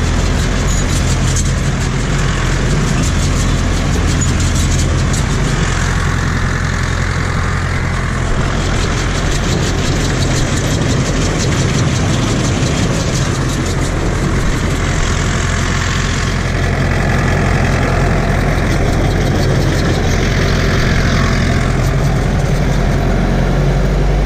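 Farm tractor's diesel engine running steadily at a constant speed, with mechanical clatter that thins out about 16 seconds in.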